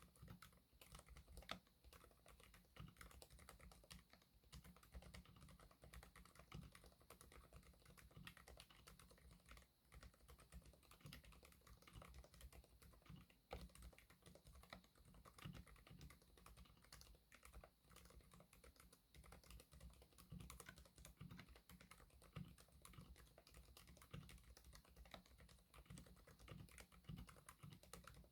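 Fast continuous typing on a mechanical keyboard with Keychron K Pro silent red linear switches in an acrylic case with OEM-profile keycaps: a faint, dense patter of muted keystrokes.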